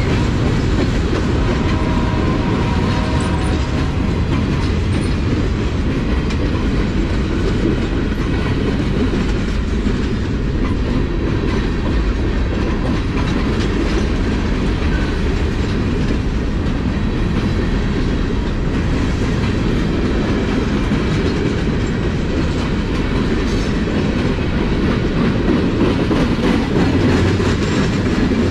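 Norfolk Southern mixed freight train's tank cars and hoppers rolling past close by: a steady, loud rumble with the clickety-clack of steel wheels over the rail joints.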